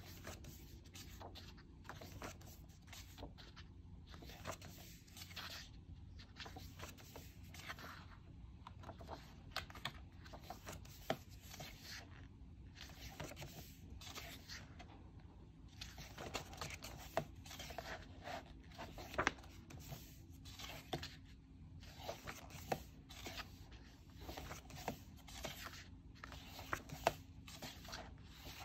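Pages of a softcover photo book being turned and smoothed by hand: many short paper rustles and flicks, over a faint steady low hum.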